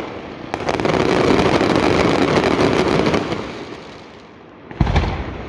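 Daytime fireworks: a dense run of rapid crackling bangs for about three seconds that fades away, then one loud bang near the end.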